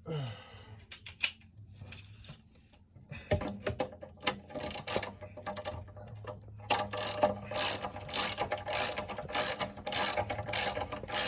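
Hand ratchet with a hex bit clicking in repeated back-and-forth strokes as it backs out a long motorcycle brake caliper mounting bolt. A few scattered clicks come first, then the ratcheting starts about three seconds in and becomes quicker and steadier over the last few seconds.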